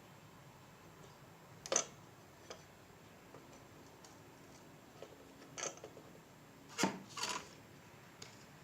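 A few scattered small clicks and taps, the loudest about two seconds in and near seven seconds, from handling soldering tools and a wire against a circuit board while soldering.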